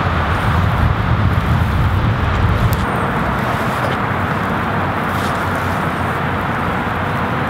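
Steady outdoor rumble and hiss, heaviest in the low end for the first three seconds, then even, with a few faint light clicks.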